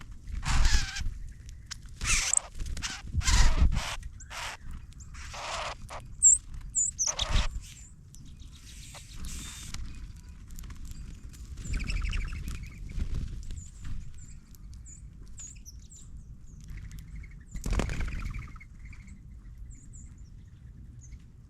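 Wild birds at a ground feeder: short high chirps scattered throughout, with a run of louder, harsher sounds in the first seven seconds and another about eighteen seconds in.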